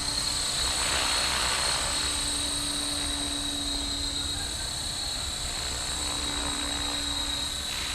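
Blade Fusion 360 electric RC helicopter in flight: a steady high whine from its motor and rotor, with a lower tone that fades out about halfway through. Wind rumbles on the microphone.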